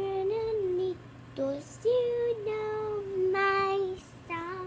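A young girl singing on her own, a few phrases of long held notes, the last one rising near the end.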